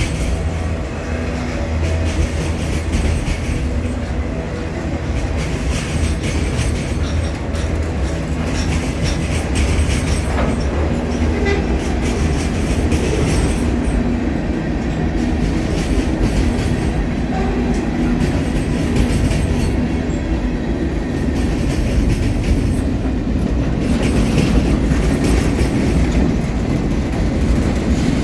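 Freight cars rolling past close by: a loud, steady rumble of steel wheels on the rails, with clattering as the wheels cross the rail joints.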